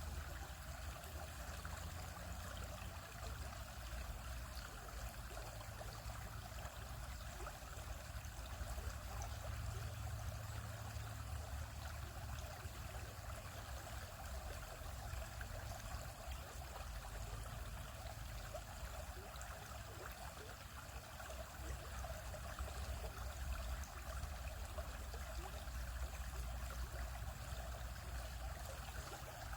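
Stream water flowing over rocks, a steady babbling rush with a low rumble underneath.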